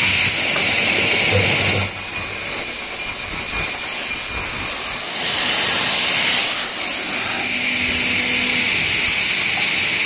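Circular saw blade of a CNC corner connector cutting saw cutting through a clamped stack of aluminum corner connector profiles. A steady high whine rides over rough cutting noise, starting about two seconds in and stopping about seven seconds in. Background music plays before and after the cut.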